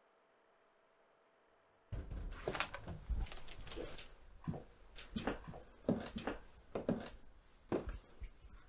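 Near silence for about two seconds, then a run of irregular knocks, clicks and thuds in a small room: a man coming in through a door and walking across the floor.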